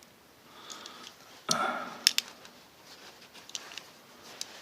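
Handling noise from a steel multi-tool held in the hands: a short scuffing burst about a second and a half in, then two sharp clicks, with a few faint ticks later.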